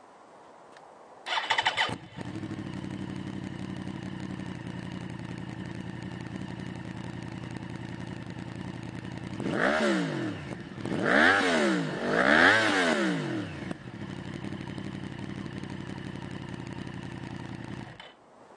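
2009 Yamaha YZF-R1's crossplane-crank inline-four with a Leo Vince SBK exhaust, started on the button with a short burst and then idling steadily. About nine seconds in, the throttle is blipped three times in quick succession, each rev rising and falling back. It settles to idle again and is shut off near the end.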